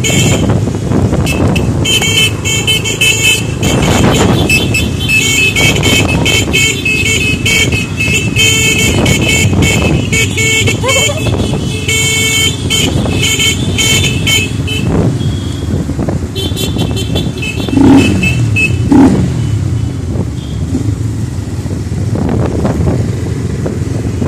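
Motorcycle engines running in a moving convoy, with many short horn toots repeated in quick succession through the first two-thirds. About three-quarters of the way through come two loud, short low blasts that fall in pitch.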